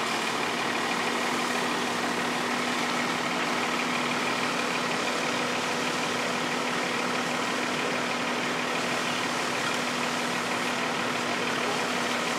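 Fire truck engine idling steadily, a constant hum.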